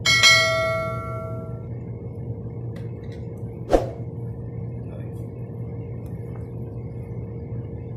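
A bell-like notification chime sound effect rings out at the start and dies away over about a second and a half. A single sharp click comes near four seconds, over a steady low hum.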